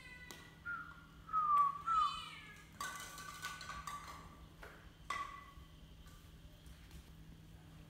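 Baby macaque giving short, high crying calls: several in the first three seconds, the loudest two about a second and a half and two seconds in, and one more about five seconds in.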